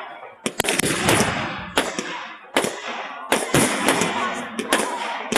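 Aerial fireworks shells bursting overhead in a quick series of sharp bangs, about two a second, with a stretch of crackle about a second in. Recorded through a phone that heavily compresses the audio.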